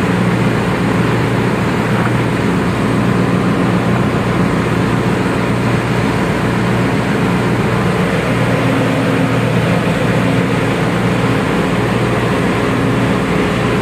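Steady, loud engine-room machinery noise aboard a ship: a constant drone with a low hum that does not change.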